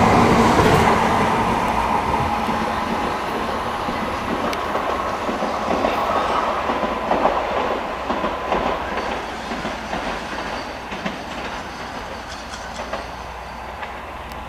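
N700-series Shinkansen train pulling out of a station. Its running noise fades steadily as it moves away, with scattered wheel clicks over the track.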